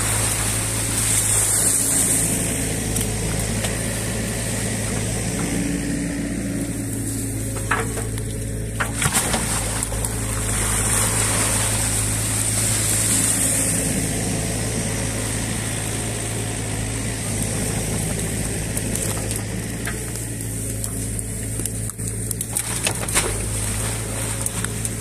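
New Holland Kobelco E50.2 mini excavator's diesel engine running steadily under load while its bucket digs wet silt and mud out of a drainage ditch. A high hiss swells and fades twice, and there are a few sharp knocks partway through and again near the end.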